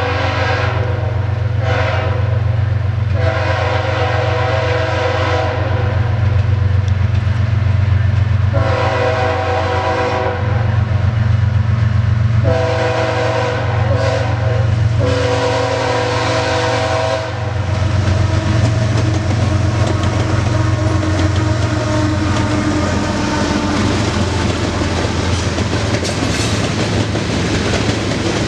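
Freight locomotive air horn sounding a series of long and short blasts for a grade crossing over a steady diesel rumble. From about eighteen seconds in the horn stops and the rolling train takes over: wheel noise and clickety-clack of loaded covered hopper cars passing close by.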